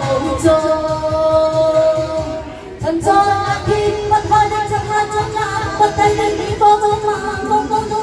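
A woman sings a Cantonese pop song through a microphone and PA, holding long notes over amplified backing music with a steady beat. The music drops briefly a little before the middle, then the voice comes back on a new held note.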